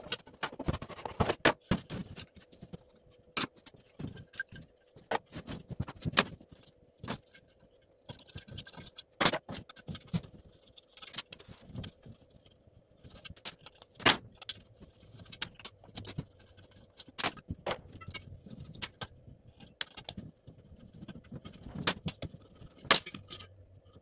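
Irregular clicks, clinks and knocks of screws, hand tools and heater parts being handled as a diesel air heater is dismantled on a workbench: the plastic cover, the finned aluminium housing and the metal burner tube set down and pulled apart. A faint steady hum sits underneath.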